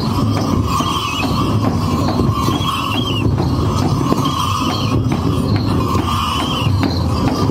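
Dhol drums beaten in a steady rhythm for a tribal Holi dance, with a short high rising-and-falling phrase that repeats about once a second over the drumming.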